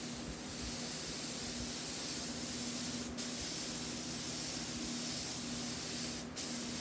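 Gravity-feed paint spray gun hissing steadily as it lays down a light white base coat, with two brief breaks in the spray.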